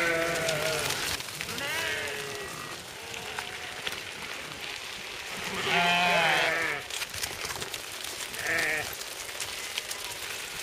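A flock of sheep and goats bleating as it walks: about four wavering bleats, the loudest about six seconds in.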